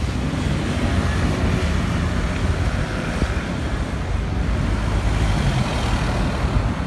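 Busy city road traffic at a junction: cars and a London black cab passing close by, with a steady engine rumble and tyre noise.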